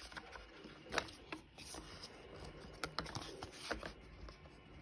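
Light handling noise: a few scattered sharp clicks and soft rustles, the loudest about a second in and several more around three seconds in.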